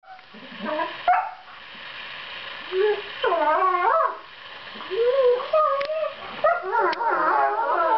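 Two borzoi puppies making whining, howl-like calls that waver up and down in pitch, in short bouts that run together and overlap near the end, with a few sharp clicks. This is play-fighting 'sweet-noise': soft calls that tell the other dog the snarling face is not serious.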